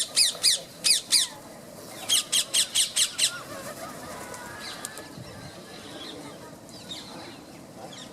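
Rose-ringed parakeets screeching: two runs of sharp, repeated calls, about four or five a second, in the first three seconds, then fainter chattering.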